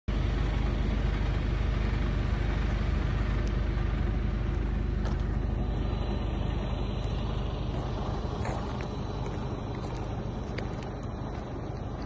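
Steady rumble of a motor vehicle running, with a heavy low end. It slowly gets quieter, with a few faint clicks near the middle and end.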